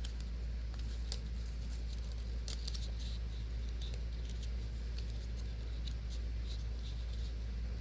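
Faint handling of paper: scattered light rustles and clicks, over a steady low electrical hum.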